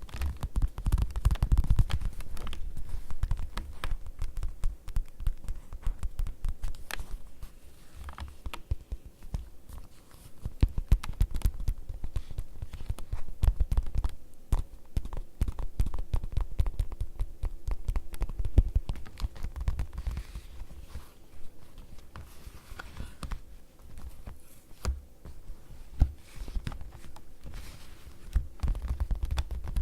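Fingertips tapping rapidly on leather: a dense, continuous patter of soft taps with dull low thuds, growing busier and louder in stretches.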